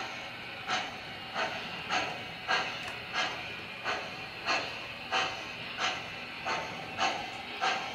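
Sound system of an MTH O-gauge U.S. Army Transportation Corps Pacific model steam locomotive playing steam chuffs at a steady rhythm of about three chuffs every two seconds, over the faint hiss of the train rolling on the track.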